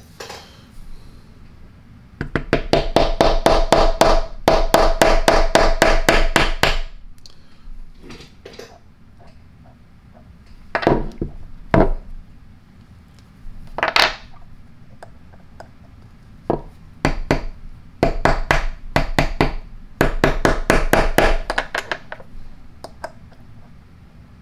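A mallet tapping on an 11 mm socket to drive the front rotor bearing into the plastic end cap of an air impact wrench, tapping in gently rather than pressing because the plastic cap cannot be heated. There are two quick runs of light taps, a few single knocks, then another run of taps.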